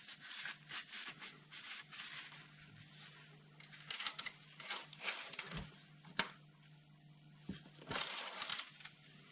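Faint rustling and rubbing of a paper towel as an engine oil dipstick is wiped and handled, with a sharp click about six seconds in.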